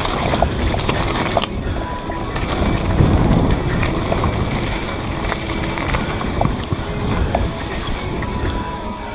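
Rumbling, buffeting noise typical of wind on the microphone, swelling about three seconds in, with scattered small clicks and knocks.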